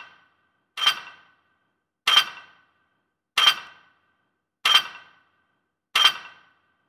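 A sharp, bright clink with a short ringing decay, repeated five times at an even pace of about one every 1.3 seconds, each strike identical to the last.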